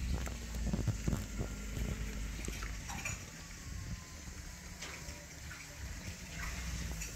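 Dog chewing and crunching a crust of bread, with wet mouth sounds and irregular crunches and clicks.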